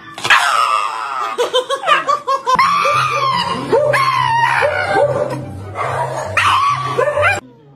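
Background music with a bass line that joins about two and a half seconds in, over a Shiba Inu's high, wavering vocalising. Both cut off suddenly shortly before the end.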